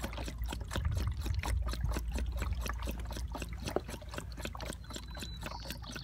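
Water pouring from a plastic jerry can's flexible spout into the water standing in a PVC pipe ring, a dense irregular patter of small splashes, as the ring is kept topped up during an infiltration test on porous asphalt.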